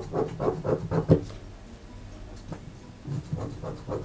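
Tailoring scissors snipping through suit fabric at the neckline: a quick run of snips in the first second or so, a pause, then a few more snips near the end.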